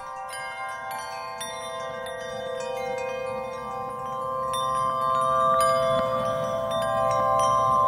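Background music of bell-like chime notes ringing over a held chord, slowly growing louder.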